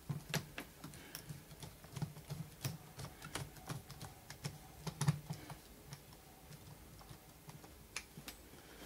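Screwdriver turning a small screw into the plastic corner joint of a suitcase's trolley handle: a run of quick, irregular light clicks that thins out after about six seconds, with one more click near the end.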